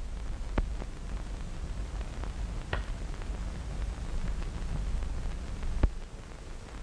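Steady hiss and low hum of an early sound-film soundtrack, with four or five sharp clicks scattered through it, the loudest near the end.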